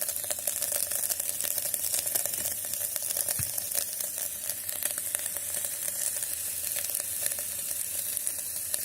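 Scrambled egg with onion (egg bhurji) sizzling and crackling steadily on the hot base of an electric kettle that has just been switched off.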